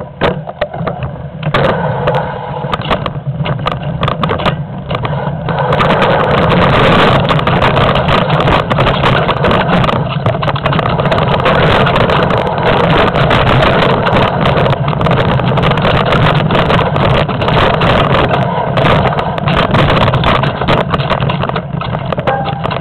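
Downhill mountain bike clattering and rattling over a rough trail, with many sharp knocks from the wheels hitting roots and rocks and a rush of wind over the camera microphone. The noise grows louder about six seconds in as the bike picks up speed.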